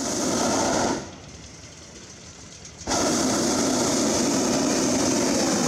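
Hot-air balloon's twin propane burner firing in two blasts: a short roar that stops about a second in, then a longer one starting about three seconds in, heating the air in the envelope for lift-off.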